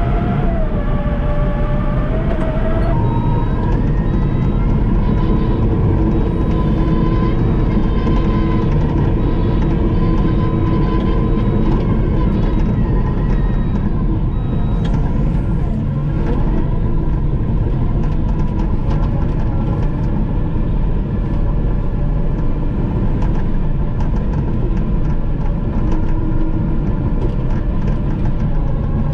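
Caterpillar crawler dozer's diesel engine running steadily as the machine works, heard from inside the cab. A whine wavers in pitch during the first few seconds, then steadier high tones follow, with light clicking in the second half.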